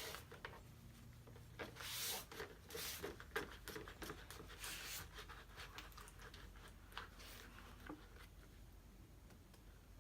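Faint, scattered clicks and brief rustles from handling bowls and slime-making things at a table, thinning out near the end.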